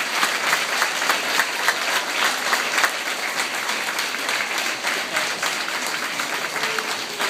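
Audience applauding, a dense patter of many hands clapping that eases slightly after about three seconds.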